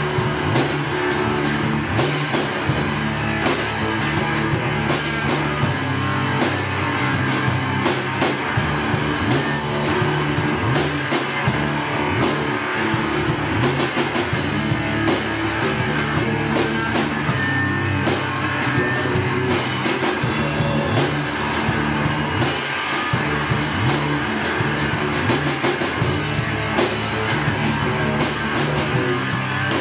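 A live rock band playing: a drum kit beating a steady rhythm under electric guitar, with a full, loud low end.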